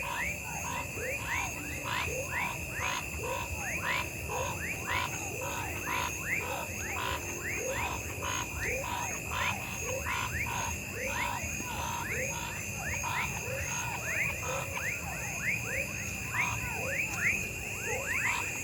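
Amazon rainforest night chorus of frogs and insects. A steady high insect trill runs under evenly repeated pulsed calls about twice a second and many short, quickly falling chirps that overlap one another.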